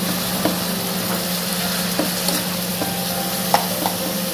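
Chopped onion and garlic frying in hot oil and ghee, sizzling steadily, with scattered clicks and scrapes of a spatula stirring it in the pan. The mixture is being fried down until the oil separates out.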